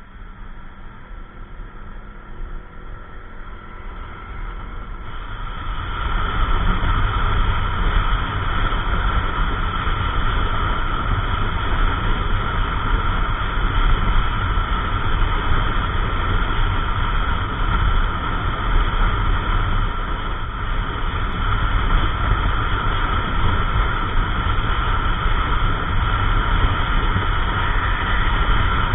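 Wind and road noise rushing over the camera microphone on a moving Yamaha NMAX 155 scooter. It grows louder over the first six seconds or so as the scooter picks up speed, then holds as a steady loud rush.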